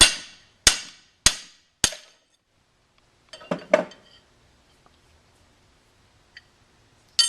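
Four hammer blows on a steel bar driving the old wooden handle slug out of a forging hammer's eye, each a sharp metal strike with a brief ring, about 0.6 s apart. A softer metallic clatter follows about three and a half seconds in, and one more sharp metal strike comes near the end.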